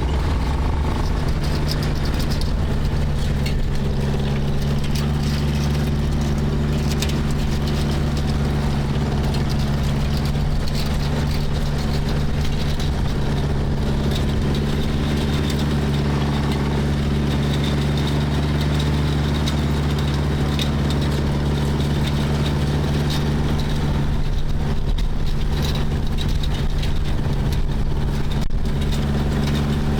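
Tractor engine running steadily at a constant speed, with a deep, even drone, as it powers a John Deere 346 square hay baler.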